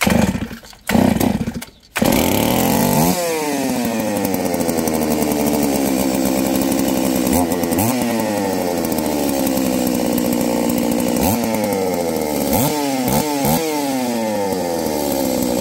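A new 381 (038-type) chainsaw's two-stroke engine, a bare powerhead with no bar or chain, pull-started on half choke: two pulls, it catches about two seconds in and keeps running. The revs rise and fall back several times, with a few quick throttle blips near the end.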